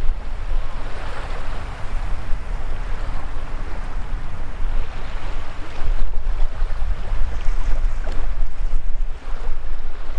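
Small waves washing up over the sand at the shoreline, rising and falling, with wind on the microphone adding a steady low rumble.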